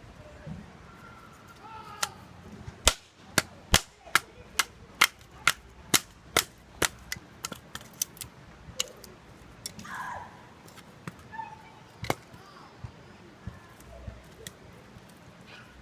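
A baton striking the spine of a 6-inch knife to split a piece of oak. Sharp knocks come about two a second for several seconds, then a few scattered strikes.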